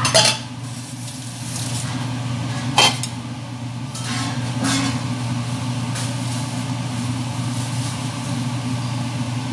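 Metal cookware clanking: two sharp clanks, one right at the start and one about three seconds in, then softer clinks of a ladle stirring in a stainless steel pot. A steady low hum runs underneath.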